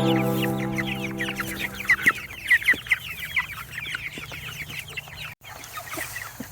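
A flock of young meat chickens peeping, many short falling chirps overlapping, busiest between about one and four seconds in. A music track's last held chord fades out under them over the first few seconds.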